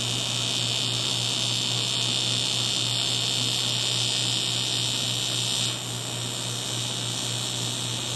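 TIG welding arc buzzing steadily while a fitting is tacked to a metal plate. The high part of the buzz drops away about six seconds in, leaving a low hum.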